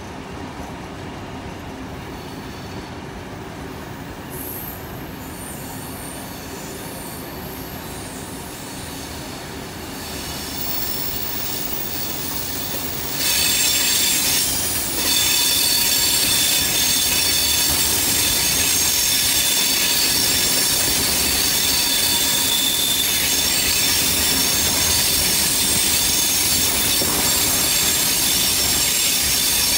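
Passenger carriages of a steam-hauled train rolling on the rails with a steady rumble. About 13 seconds in it gets much louder, and a high-pitched wheel squeal sets in and continues as the train rounds a curve.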